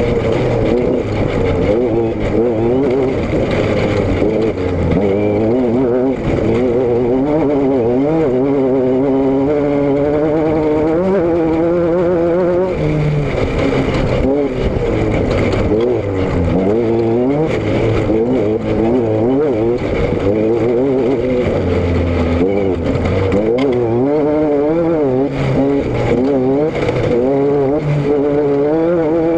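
A vehicle engine running under way, its pitch wavering up and down again and again over a steady rushing noise.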